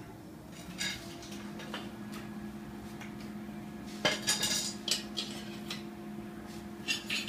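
Lengths of square steel tubing being handled on a concrete floor, clinking and knocking now and then, loudest around four to five seconds in and near the end. A steady hum sets in about a second in.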